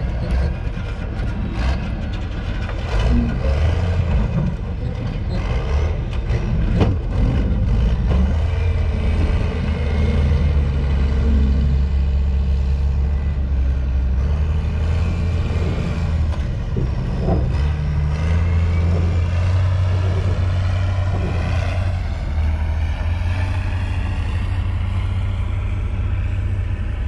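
Heavy machine engine running steadily, with a whine that slowly rises and falls as hydraulics work and a few sharp metal clanks: a scrap-yard excavator moving a scrapped car.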